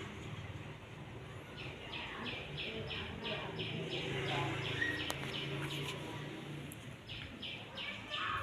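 A bird calling in a rapid, even run of short chirps, about three or four a second, pausing briefly near the end before starting again, over a low steady background hum.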